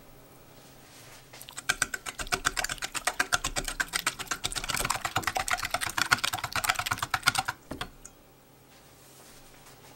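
A fork beating wet batter in a stainless steel bowl: quick, even clinks of the fork against the metal mixed with the wet slap of the batter. The beating starts about a second and a half in and stops shortly before the end.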